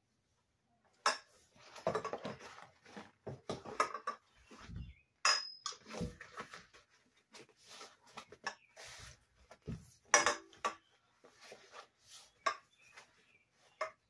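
Roller racer go-kart's frame tubes and seat clattering and knocking as the fabric seat is worked onto the frame by hand. Irregular clicks and rattles, with a few low thumps.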